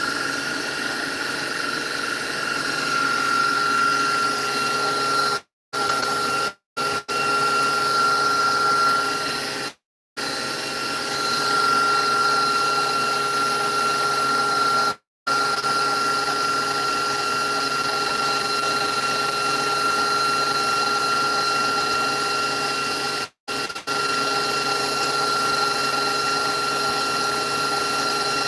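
Electric mixer running steadily as it beats cream, a constant motor whine. The sound drops out to silence for a moment several times.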